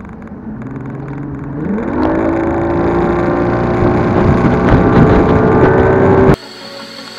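Bass boat's outboard motor throttling up, its pitch rising steeply about two seconds in, then running steadily at speed. It cuts off abruptly near the end, where music takes over.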